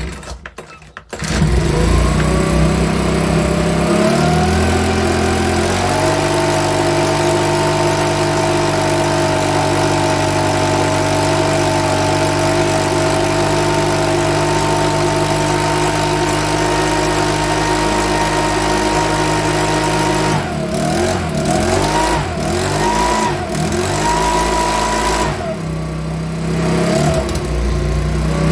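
Makita BHX2500 leaf blower's 24.5 cc four-stroke engine starting about a second in and revving up in two steps to a steady high speed. Near the end the throttle is let off and opened several times, so the speed dips and rises, falls toward idle, then picks up again.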